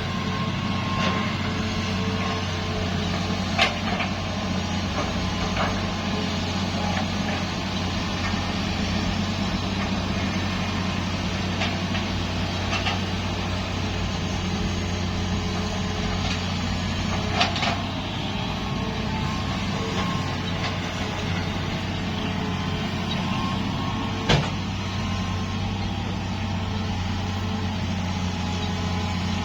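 Heavy diesel engine of construction machinery running steadily with a low drone. Three sharp knocks stand out over it: one a few seconds in, one about halfway, and one later on.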